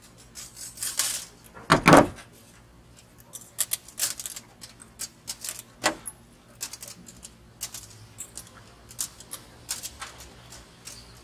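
No. 12 rigging wire and pliers clicking and scraping as a haywire twist is tightened and the wire ends are worked by hand: irregular small ticks, with one louder rasp about two seconds in.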